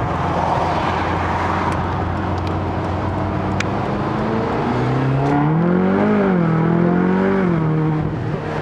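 Ferrari California's V8 engine heard from inside the cabin: a steady drone at first, then revving up under acceleration about halfway in. The pitch climbs, dips briefly and climbs again, then drops back to a steady note near the end.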